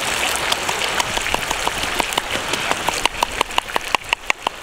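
Giant river prawns cooking in a clay pan over an open wood fire: a steady sizzling hiss with sharp crackles and pops, several a second.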